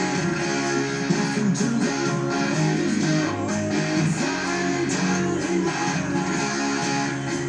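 Electric guitar strumming chords of a rock song, each chord ringing and changing about once a second.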